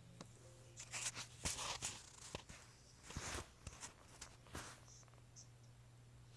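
A sleeping dog snoring, with short noisy breaths about a second and about three seconds in, among a few sharp clicks, over a steady low hum.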